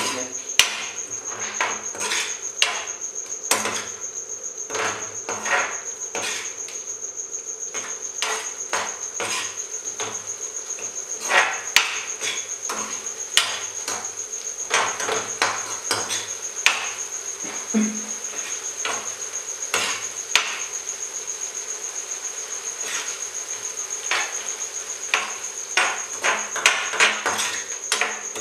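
Metal spoon stirring sliced capsicum through thick masala gravy in a steel pan, with irregular clinks and scrapes against the pan, a few sharper knocks among them. A steady high-pitched whine sounds behind it.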